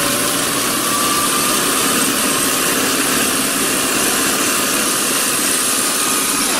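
Engine of a tracked cable-laying machine running loud and steady, with a faint whine rising slightly in the first few seconds.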